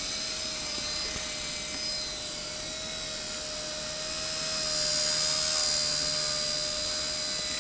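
Radio-controlled model helicopter hovering: a steady high whine of motor and rotor, growing slightly louder about five seconds in.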